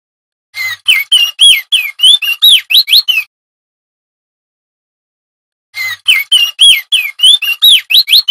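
Male opior jambul (crested white-eye) singing loudly: two phrases of rapid, sliding whistled notes, about four a second, with a pause of a couple of seconds between them.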